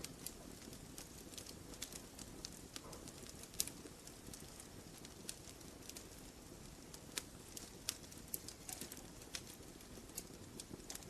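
Campfire logs burning: frequent, irregular sharp snaps and pops over a soft, steady low hiss of the fire.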